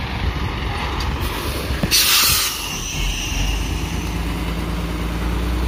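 Nissan 10-ton dump truck's diesel engine running while the truck manoeuvres, with a loud hiss of released brake air lasting about half a second, two seconds in. After that the engine settles into a steady idle.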